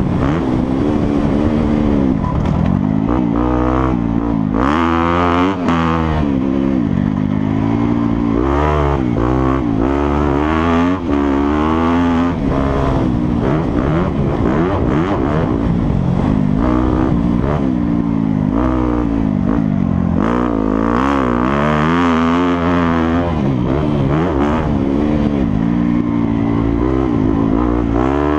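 2016 Yamaha YZ250F's 250 cc four-stroke single-cylinder engine under hard riding, its pitch rising and falling over and over as the throttle is opened and closed through the gears.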